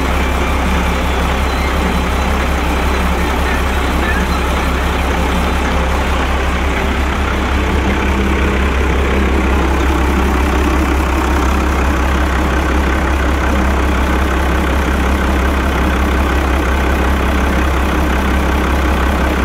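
Cummins C8.3 inline-six diesel engine running steadily, at an even pitch and level throughout.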